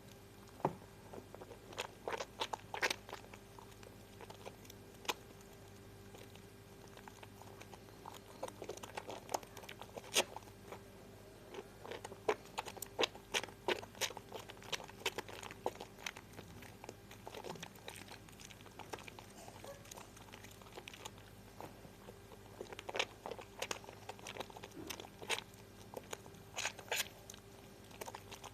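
Harmoni lemon bar soap being lathered: irregular wet crackling clicks of the soap and foam, some sharp and some soft.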